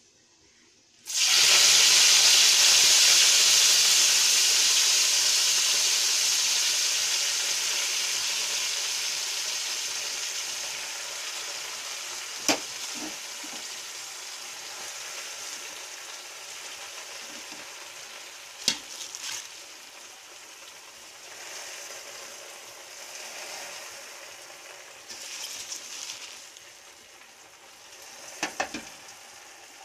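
Freshly washed gongura (roselle) leaves going into hot oil in a steel pot: a loud sizzle starts suddenly about a second in and slowly dies down as the leaves pile in. A few sharp clinks come through it.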